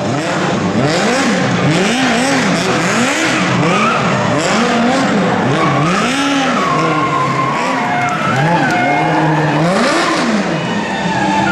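Small Smart ForTwo city car doing donuts, its engine revving up and down over and over while the tyres squeal and skid on the tarmac.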